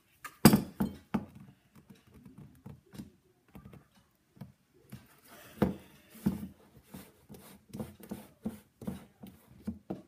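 A lidded plastic tumbler of white mixture being shaken and handled: a run of irregular knocks and thuds, about two to three a second, with the loudest knocks about half a second in.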